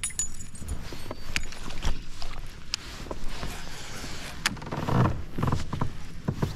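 A spinnerbait cast on a baitcasting rod and reel, then reeled back, with scattered sharp clicks and knocks from the reel and handling.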